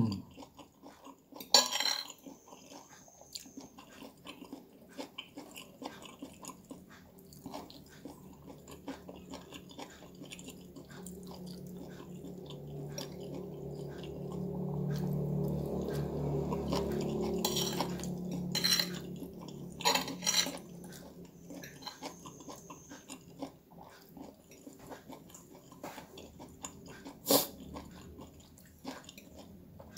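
A man eating fried noodles: chewing, with a spoon and fork scraping and clinking on a plate, a few sharper clinks among them. A low hum swells and fades over several seconds in the middle.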